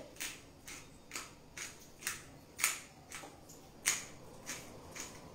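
Hand pepper mill grinding peppercorns, a short crunching burst with each twist, about two a second.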